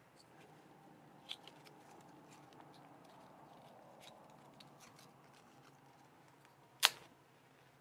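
Small paper rustles and light clicks as a paper matchbook is handled, then one sharp scrape with a brief fizz near the end as a match is struck.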